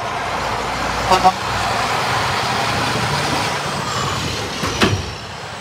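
Semi truck with an end-dump trailer driving past close by, its diesel engine running steadily. Two short horn toots come about a second in, and a brief sharp noise follows near the end.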